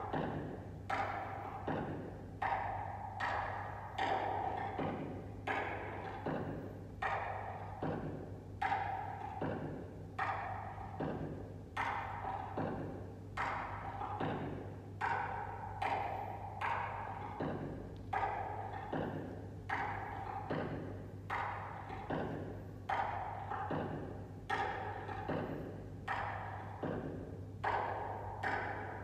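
Steady percussion beat of hollow wooden knocks, about two a second, each with a short ringing tone, over a low steady hum.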